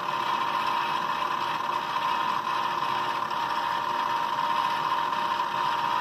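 Klutch benchtop milling machine running with a steady whine, its 4-flute end mill taking a very light skim pass, about a thousandth of an inch, across the plastic shell of a model locomotive as the work is fed past the cutter.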